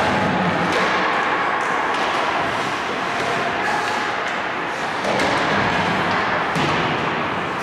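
Hockey game play: a steady rink noise with several sharp knocks and a thud from sticks, puck and boards.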